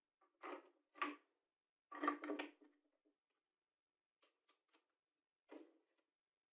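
A few short clacks and knocks, the loudest cluster about two seconds in, then faint light ticks and one more knock near the end: a wooden disc and its metal flange being fitted onto a bench grinder's shaft and the nut turned by hand, with the motor off.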